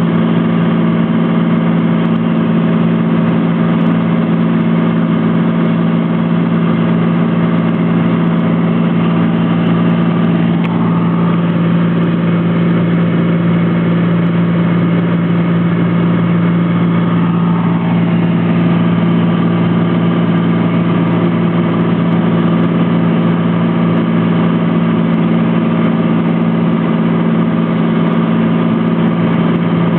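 Cessna T182T Turbo Skylane's turbocharged six-cylinder engine and propeller running steadily, a loud, even drone with a low hum; its higher tones shift slightly for several seconds about a third of the way in.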